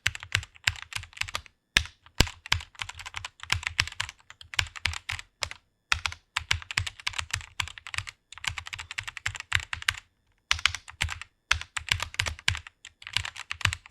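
Computer keyboard typing: rapid keystrokes in quick runs, with a few brief pauses between them.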